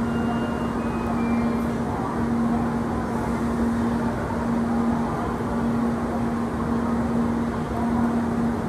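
N700A Shinkansen train standing at the platform, its equipment giving a steady hum with a low steady tone. A few short high chime-like tones fade out near the start.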